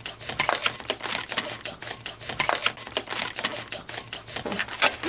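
Long latex modelling balloons being twisted and handled, giving an irregular run of short rubbing squeaks and crinkles.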